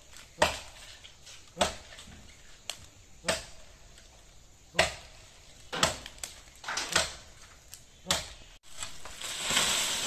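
Hand-held blade chopping into the trunk of a standing coconut palm, one sharp strike every second or so, about eight in all. Near the end the chopping stops and a steady hiss takes over.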